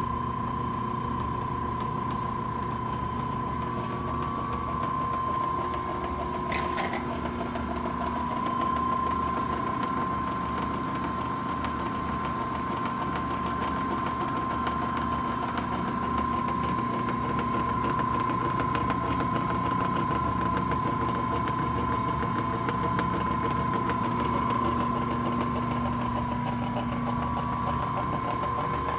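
Cincinnati Series 5 mechanical press brake running steadily, its motor and flywheel turning: an even machine hum under a high, steady whine, with one short click about seven seconds in.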